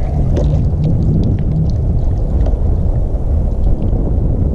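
Steady low wind rumble buffeting the microphone, with a few faint drips and splashes of water as a dripping landing net with a caught fish comes out of the sea, mostly in the first second or so.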